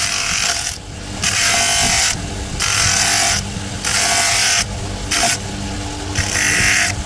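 A woodworking tool working wood in repeated strokes: a loud rasping, hissing noise about a second long, stopping and starting roughly every second, over a steady low machine hum.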